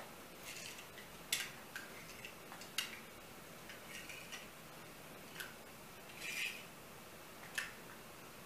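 Faint, scattered light clicks and soft rustles as small die-cast metal toy cars are set down one by one into a row on a blanket, knocking lightly against one another.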